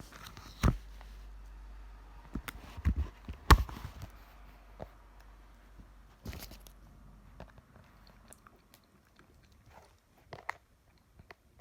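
Tape being peeled and picked off a cracked iPad screen: irregular crackling and small clicks, with a few sharper knocks.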